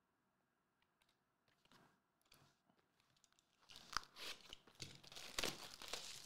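A few faint clicks, then from about four seconds in a dense run of plastic wrapping crinkling and tearing as a sealed trading-card box or pack is opened.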